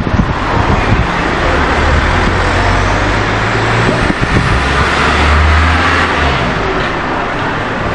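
Steady road-traffic noise with a low engine drone that comes up twice.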